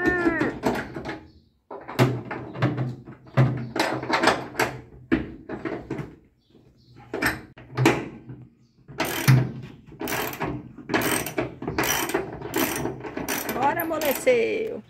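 Socket ratchet wrench clicking in bursts as a stubborn seat-belt anchor bolt is worked, settling into a steady back-and-forth of about two strokes a second in the second half.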